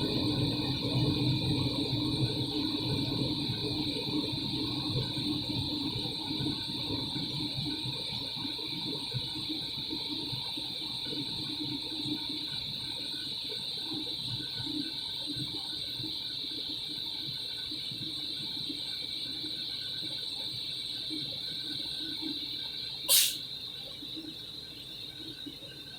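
ICP 80% gas furnace running: a steady high whine over a low rumble that slowly fades, with one sharp click near the end. The furnace has a fault where its burner flame goes out.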